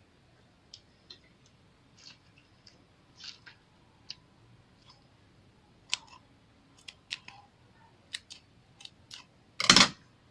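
Scattered small clicks and sticky crackles of slime being handled, with one louder, longer crackling burst about nine and a half seconds in.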